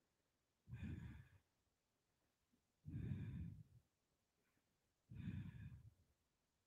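A woman's breathing picked up by her close microphone: three soft breaths about two seconds apart, each lasting under a second.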